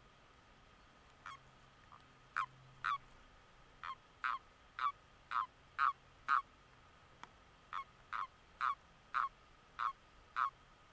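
Common toad males calling: a series of short croaks, each falling in pitch, about two a second, in two runs with a brief pause between them.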